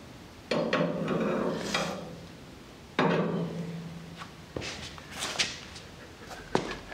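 Workshop knocks: two hard knocks, each ringing on and fading over about a second, followed by a few lighter taps and clicks, the sounds of tools and parts being handled during suspension alignment work on the chassis.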